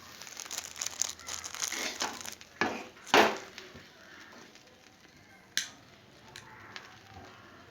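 Spatula stirring and scraping dry, crumbly grated coconut as it roasts in a pan: a rustling scrape with two louder strokes about three seconds in, then quieter, with one sharp click a little after the middle.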